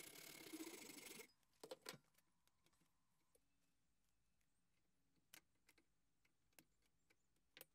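Faint hacksaw strokes cutting a circlip groove into the steel end of a ball screw, stopping suddenly about a second in. Then near silence with a few faint clicks.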